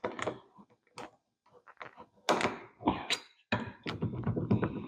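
Thunks and clicks of a 1968 Chevy Impala's interior door panel being pried away from the door at its retaining clips. There are sharp knocks about one, two and three seconds in, then a denser run of rattling and knocking near the end.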